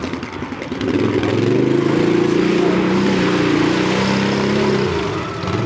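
ATV engine running hard at high revs for about four seconds, then falling away near the end.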